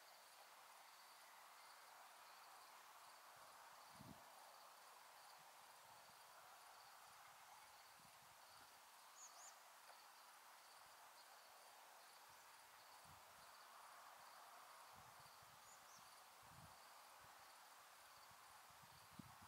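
Near silence: faint evening outdoor ambience with a steady, pulsing, high-pitched insect chirping, two brief higher chirps, and a few soft low thumps.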